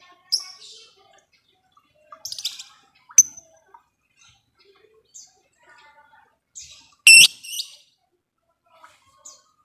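Lovebirds chirping: short, shrill calls scattered with gaps, the loudest a brief sharp call about seven seconds in.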